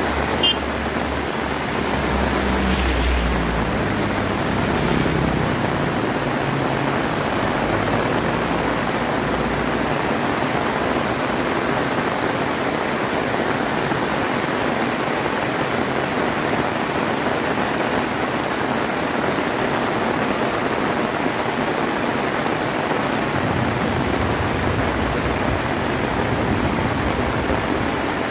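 Heavy rain falling steadily, a dense even hiss, with low rumbles of thunder from about two seconds in and again near the end. A single sharp tick sounds just after the start.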